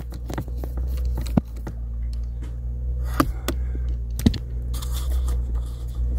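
A small screw being undone from the plastic dashboard trim: scattered light clicks and scrapes of the screwdriver and fingers on the screw and plastic, over a steady low hum.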